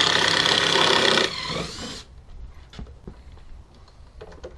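Cordless drill running in a wooden shipping crate's screw, then spinning down and stopping about two seconds in; a few faint clicks and knocks follow.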